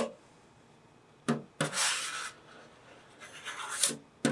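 Squeegee scraping solder paste across a PCB stencil in two strokes, the second building in loudness, with a short knock before the first stroke and another near the end.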